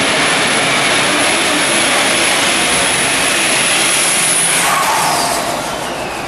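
Super stock diesel pulling truck at full throttle dragging a weight-transfer sled, a high steady turbo whine riding over the loud engine noise. About four and a half seconds in the driver lets off at the end of the pull and the whine slides down as the engine dies away.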